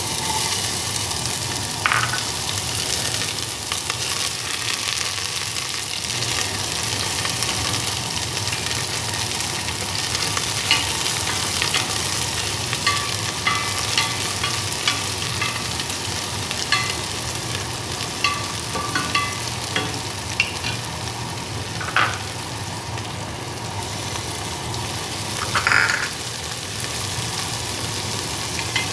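Diced onion frying in hot oil in a stainless steel pot, sizzling steadily, with the scrape and occasional sharper knock of a spatula stirring against the pot.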